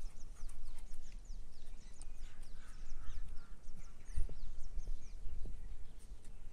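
Small birds chirping in the background: many short, high, falling chirps in quick succession, with a few low thumps about four and five and a half seconds in.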